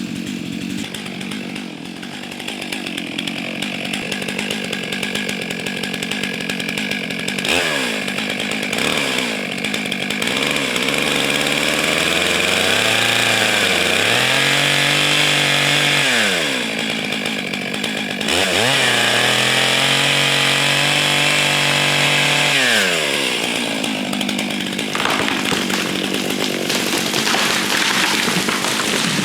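Chainsaw running and cutting into a pine trunk, the throttle revving up and dropping back several times. During two long stretches of cutting the engine note sinks and holds lower under load.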